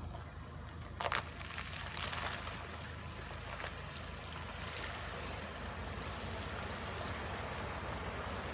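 Nissan pickup truck wading through a shallow stream: its engine drones low and steady while water sloshes and splashes around it, growing slowly louder as it comes closer. A brief sharp knock about a second in.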